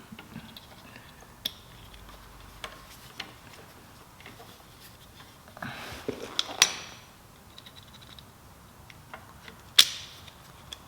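Small metal clicks and clinks of pliers and a brake return spring working against drum brake shoes as the spring is stretched into place. The taps come scattered, with a cluster about six seconds in, the loudest at the end of it with a brief ring, and another sharp click near ten seconds.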